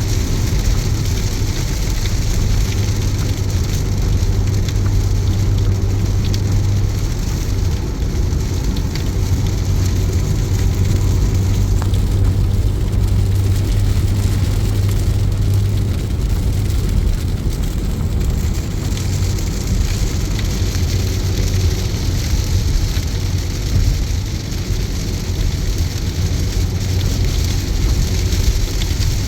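Heavy rain drumming steadily on a car moving at motorway speed, with the hiss of tyres through surface water over a constant low road and engine hum.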